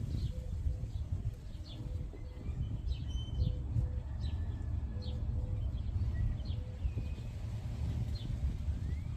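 Small birds chirping: short high chirps repeating about once or twice a second, over a steady low rumble.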